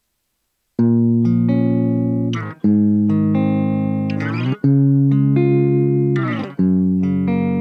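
Raw, un-denoised guitar recording played back: four strummed chords, each ringing and fading, with a brief scratch of string noise before each chord change. The recording carries the static and hum that the denoising is meant to remove.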